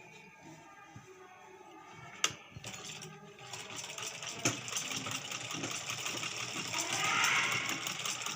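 Sewing machine running and stitching fabric, with fast even clatter that is quiet at first and grows louder from about three seconds in. A single sharp click sounds about two seconds in.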